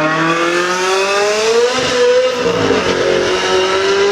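Lamborghini Huracán's V10 engine accelerating hard in a tunnel: the revs climb for about two seconds, drop with an upshift, then climb again.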